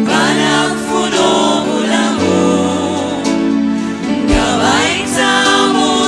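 Live gospel music: a group of singers harmonising into microphones over band accompaniment, with a few bass drum beats in the second half.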